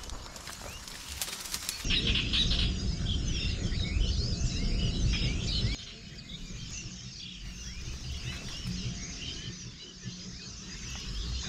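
A chorus of many small birds chirping over the pond. In the first two seconds there is rustling with sharp handling clicks, and from about two seconds to nearly six seconds in a loud low rumble sits under the birdsong, then stops suddenly.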